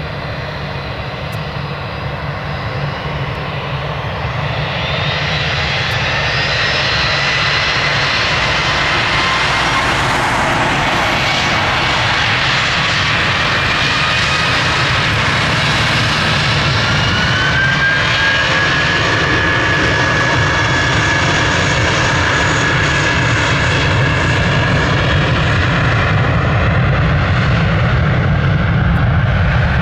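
Airbus A320's two IAE V2500 turbofan engines spooling up to takeoff thrust and running at full power through the takeoff roll. The sound grows louder over the first several seconds, then holds loud and steady, with high whining tones that glide upward around the middle.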